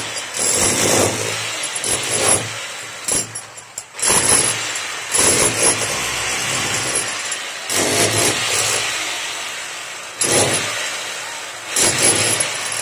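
Handheld electric disc cutter grinding a chase into a brick wall. The grinding swells and drops as the blade bites into and eases off the brick, with short breaks several times, the longest about four seconds in.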